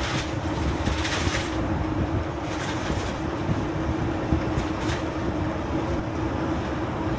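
Car driving on the road, heard from inside the cabin: steady engine and tyre noise with a constant hum, and a few brief swells of hiss.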